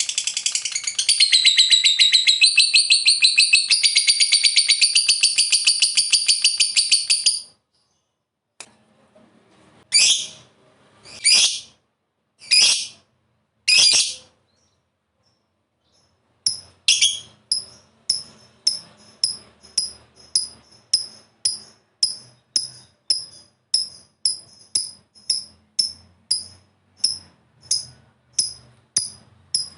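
Lovebird calling: a long, fast chattering trill, the 'ngekek panjang' prized in fighter lovebirds, lasting about seven seconds, then four single high calls a little over a second apart, then a steady run of short sharp chirps, a bit under two a second.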